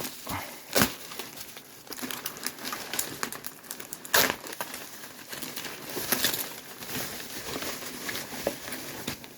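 Bubble wrap and packaging crinkling and rustling as the box is opened and the radio unwrapped. There are two sharp snaps, about a second in and about four seconds in.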